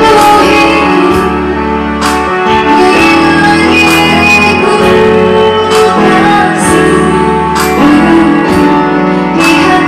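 Loud music with held chords over bass notes that change every second or two.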